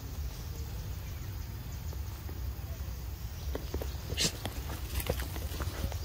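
Macaque monkeys eating mango and then scrambling off: wet bites, clicks and rustles that come thick in the second half, with one short sharp noise about four seconds in, over a steady low rumble.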